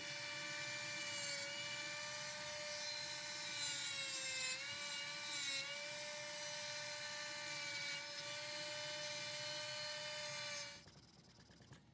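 High-pitched whine of a small high-speed electric power tool running steadily. Its pitch sags briefly about four to five seconds in, as if the bit is pressed into the work. It cuts off shortly before the end.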